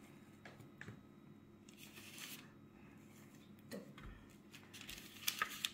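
Faint rustling of parchment paper and soft taps as raw dough strips are laid by hand on a lined baking tray, with a few sharper little clicks near the end.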